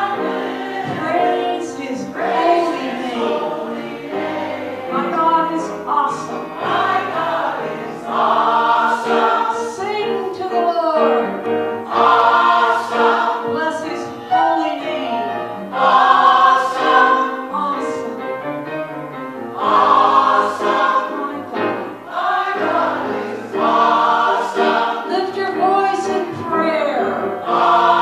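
Gospel choir singing together in phrases of a few seconds, with held lower notes under the melody.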